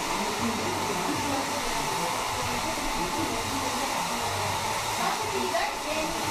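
Hair dryer blowing steadily in a salon, a continuous airy whir with a faint steady hum in it.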